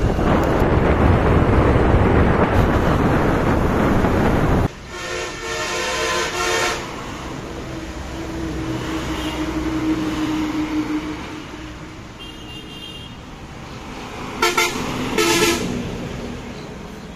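Steady wind and road noise from a moving vehicle, which cuts off suddenly about five seconds in. A vehicle horn then sounds for about two seconds, a vehicle passes, and two short horn toots come near the end.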